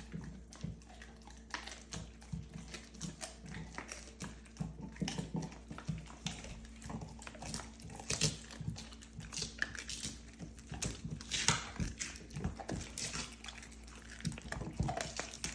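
Belgian Malinois chewing raw rib bones: irregular wet gnawing broken by sharp crunches and cracks as the teeth go through the bone.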